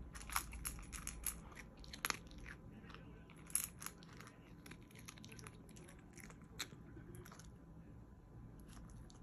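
Miniature pinscher crunching dry kibble from a stainless steel bowl: a run of sharp, crisp crunches, densest in the first half and growing sparser toward the end.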